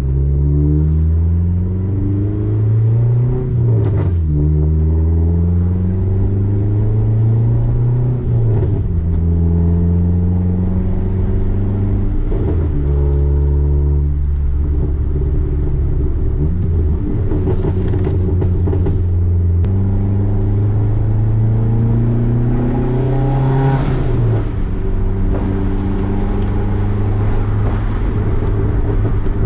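Dodge Neon SRT-4's turbocharged 2.4-litre four-cylinder engine accelerating through the gears of its manual gearbox: the engine note climbs, drops sharply at each upshift, and climbs again, several times over.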